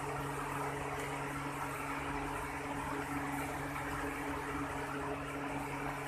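A steady machine hum, a low drone with an even hiss over it, running without change.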